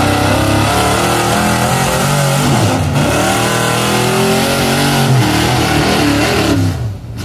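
Gasoline pickup truck engine at full throttle pulling a weight-transfer sled, the revs rising and falling, with a brief dip about three seconds in. The engine sound drops off sharply near the end.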